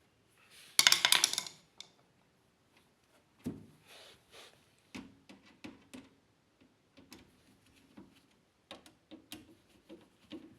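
Small hard parts and tools being handled during a washing machine drain pump repair. A loud rattling scrape comes about a second in, then scattered light clicks and knocks.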